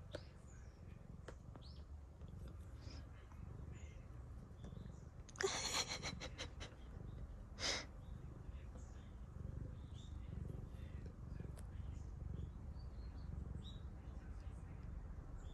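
Tabby cat close to the microphone with a low purring rumble, and a loud snuffling, rustling burst about five and a half seconds in, then a shorter one about two seconds later, as its nose and face come right up against the phone. Faint ticks of a stylus on a tablet screen.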